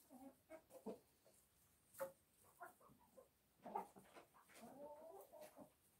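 Chickens clucking faintly: a string of short clucks, then a longer wavering call about five seconds in.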